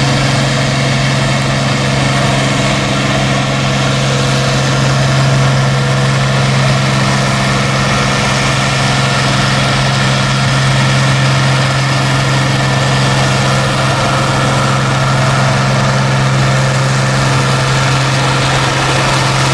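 Farmall pulling tractor's engine idling steadily with an even low hum, stopped with the pulling sled still hooked on at the end of its pull.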